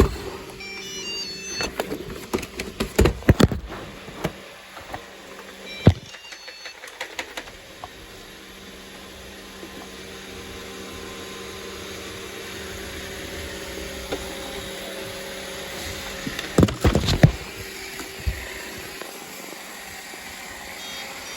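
Robot vacuum running with a steady hum. Clattering knocks come in the first few seconds and again about three-quarters of the way through, and a few short electronic beeps sound near the start.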